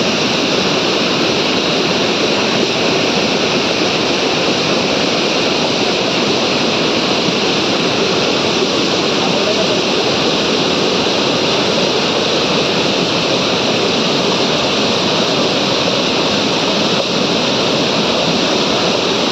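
Loud, steady rush of a rocky mountain stream tumbling over boulders and small cascades.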